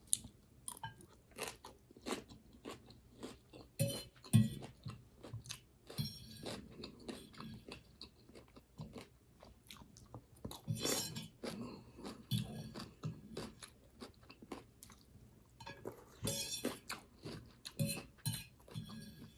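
Person chewing and crunching mouthfuls of raw garden salad, close to the microphone: irregular crisp crunches and wet chewing clicks.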